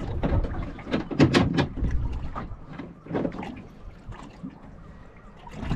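Irregular sharp knocks and clicks of a metal rod holder being worked into its mount on a small boat's gunwale, with water slapping the hull; no engine running.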